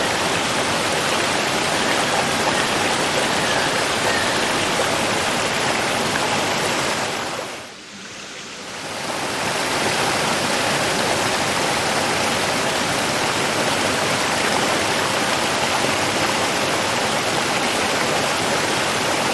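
Running water, a steady full rush like a stream or small waterfall. About eight seconds in it fades down briefly and swells back up.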